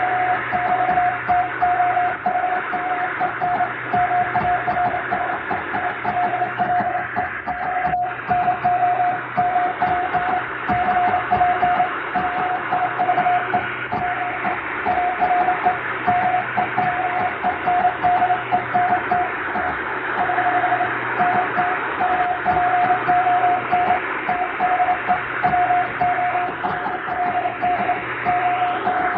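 Morse code telegraphy: a single steady-pitched beep keyed into continuous dots and dashes, sending English telegram text. It sits in a steady hiss of static and a low hum, added to mimic reception of a shortwave radiotelegraph signal.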